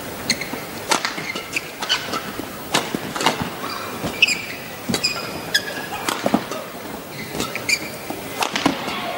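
Badminton rally: sharp racket strikes on the shuttlecock about once a second, with short high squeaks of the players' shoes on the court.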